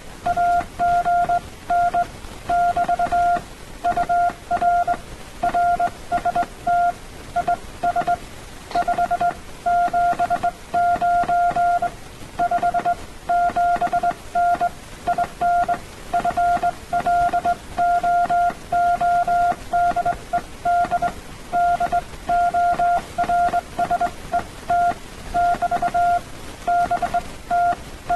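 Morse code (CW) sent by hand on a straight key at about 18 words per minute: a single steady mid-pitched tone keyed on and off in dots and dashes, over a faint hiss. It spells out a contact's signal report and location.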